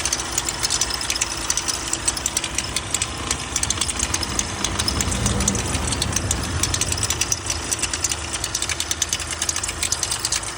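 Volkswagen Amarok diesel engine running with a loud, rapid ticking clatter: the strange engine noise of a failed high-pressure fuel pump.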